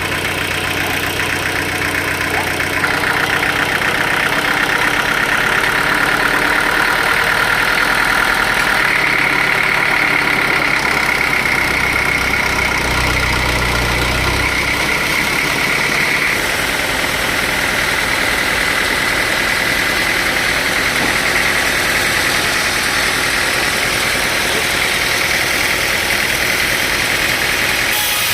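Sawmill saw running: a steady engine drone under a high, held whine from the blade, the whine stepping up in pitch about nine seconds in.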